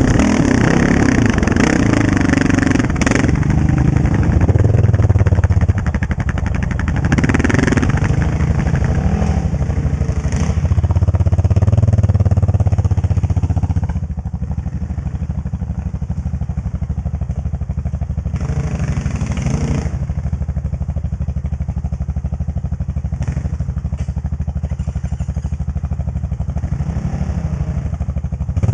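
Honda TRX700XX quad's single-cylinder engine running on a gravel trail, revving up and easing off under throttle. About halfway through it drops to a quieter, steadier low-throttle run.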